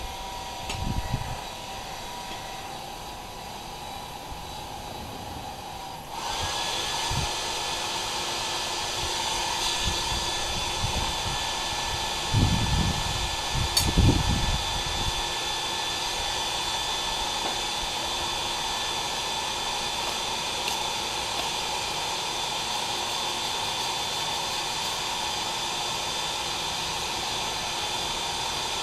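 An electric blower running with a steady rushing noise and a thin whine. A louder motor starts about six seconds in, its whine rising briefly as it spins up, and then runs steadily. A few dull knocks come between about twelve and fifteen seconds in.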